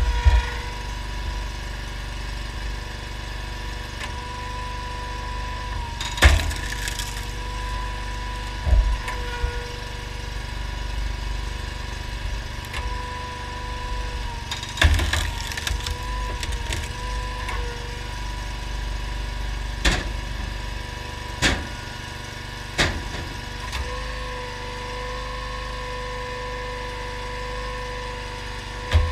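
Honda GX690 V-twin engine running steadily on a homemade hydraulic log splitter, with a steady whine that shifts a little in pitch. Logs split under the wedge with several sharp cracks and knocks, spaced a few seconds apart.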